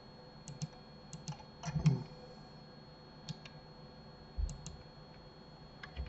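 Computer mouse and keyboard clicking: a dozen or so short, sharp clicks, mostly in pairs a split second apart, with one duller knock about four and a half seconds in. A faint steady hum runs underneath.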